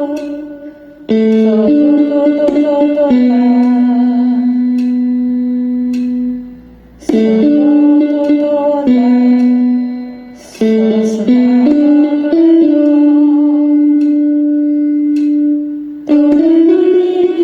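A woman singing a slow Mandarin pop melody, holding long notes of several seconds each, over a plucked-string, guitar-like accompaniment. Brief pauses for breath fall between phrases about a second in, around seven and ten seconds in, and near the end.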